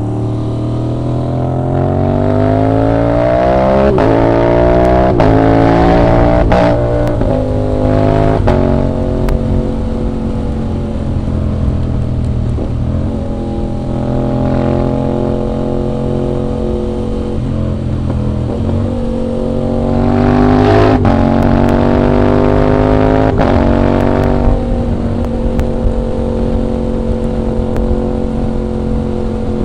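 Aprilia RS 660 parallel-twin engine accelerating hard through the gears. Its pitch rises and drops at each quick upshift, about four shifts in the first nine seconds, then it runs steadily at a constant speed. About twenty seconds in it pulls up through the gears again, with three more upshifts, before settling back to a steady cruise.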